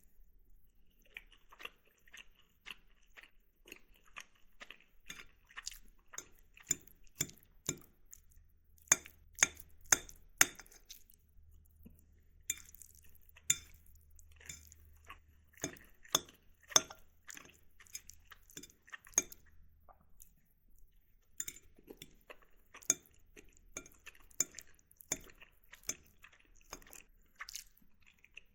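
Someone eating pasta from a ceramic plate: a metal fork clinks and scrapes against the plate in irregular strikes, some sharp and ringing, with soft chewing in between.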